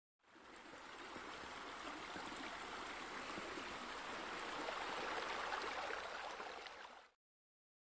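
Steady splashing and pouring of water from pool water features, jets and sheer descents spilling into a pool. It fades in at the start, grows a little louder, and cuts off abruptly about a second before the end.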